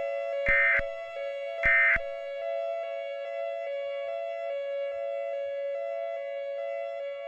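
Two short bursts of EAS end-of-message digital data tones, about a second apart, heard over a steady synthesizer chord that runs on underneath.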